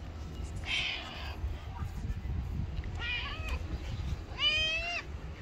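Tabby cat meowing three times, the last call near the end the longest and loudest, rising and then falling in pitch.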